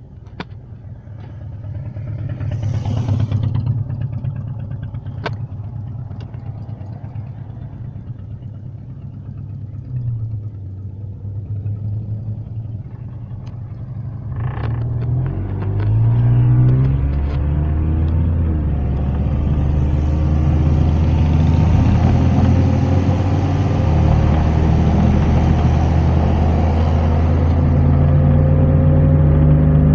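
Car engine and road noise heard from inside the cabin: a low drone that rises in pitch and grows louder as the car accelerates about halfway through, then runs on steadily at speed.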